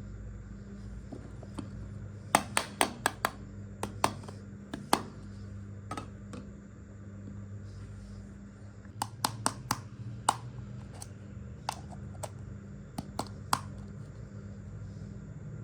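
Miniature toy kitchenware pieces being handled, clicking and clinking against each other in quick clusters of sharp clicks, over a steady low hum.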